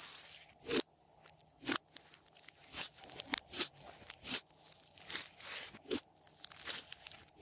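Glossy slime being worked by hand, giving irregular sticky clicks and snaps, one or two a second, with two sharper ones in the first two seconds.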